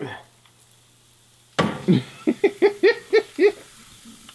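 Ham steak laid on a hot charcoal grill, a faint steady sizzle starting about one and a half seconds in. Over it, a person laughs in a quick run of about seven short bursts.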